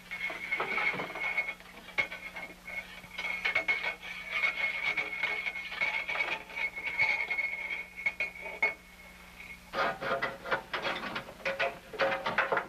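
Rapid, irregular knocking and rattling in household plumbing pipes over a steady whistling tone, changing about ten seconds in to louder metallic clattering as the sink plumbing is worked on.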